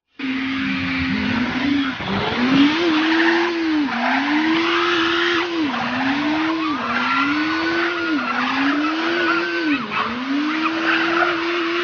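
Car engine revving hard under load while its drive wheels spin on the dirt with tyre squeal. The engine pitch climbs and sags again and again, about every second and a half.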